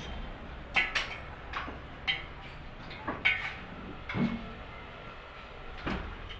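Irregular metal clinks and knocks, about eight of them, as a cast steering knuckle and wheel-bearing parts are handled and set down on a concrete floor, over a steady low hum.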